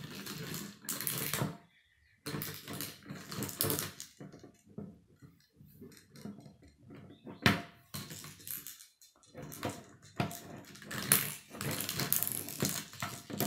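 Hand-cranked K'nex Archimedes screw turning, its plastic rods and connectors rattling and clicking in uneven bursts as a plastic ball tumbles inside the helix. A sharp click stands out about seven and a half seconds in.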